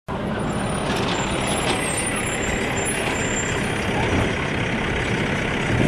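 Automated side-loader garbage truck's diesel engine running steadily as the truck pulls up to the curb beside the bins.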